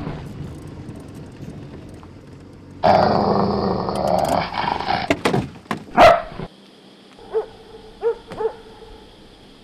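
A dog barking and growling: a run of loud, sharp barks about five to six seconds in, then, after the background suddenly drops away, three shorter, fainter barks.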